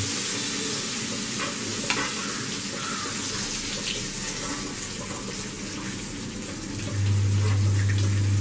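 Chopped capsicum sizzling in hot oil in a kadai, with a spatula stirring and scraping it and a few light clicks. A steady low hum comes in near the end.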